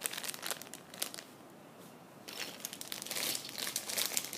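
Small clear plastic bags holding miniature pieces crinkling as they are handled. There is a short spell at the start, then a lull, then steadier crinkling from about two seconds in.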